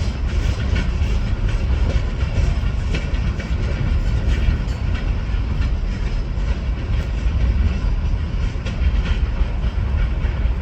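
Freight train rolling past: a steady low rumble with the clatter of wagon wheels over the rail joints.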